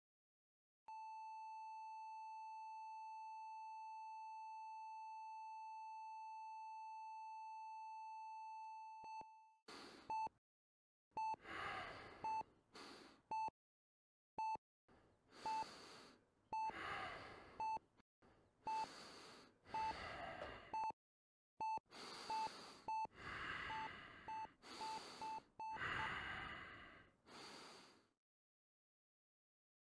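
A continuous medical-monitor tone holds for about eight seconds, then gives way to a person's heavy gasping breaths through a full-face oxygen mask. Short monitor beeps come about once a second between and over the breaths.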